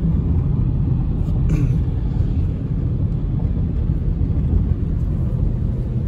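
Steady low road rumble inside a moving car's cabin, its tyres running on a wet road.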